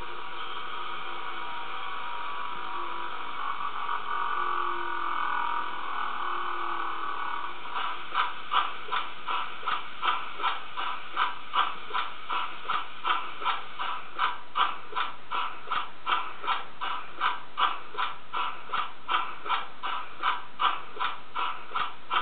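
Sound module of a gauge 0 class 23 steam locomotive model: a steady steam hiss for about eight seconds, then a run of evenly spaced exhaust chuffs, about two a second, set off by the loco's wheel sensor.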